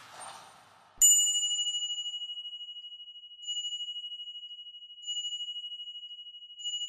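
A high, clear chime tone struck about a second in, then struck again three more times roughly every one and a half seconds, each ring fading with a fast wavering.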